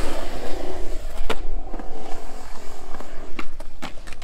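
Skateboard wheels rolling over smooth new concrete as the rider pushes, making a steady rolling rumble. Sharp clacks from the board come right at the start, about a second in, and a few more near the end.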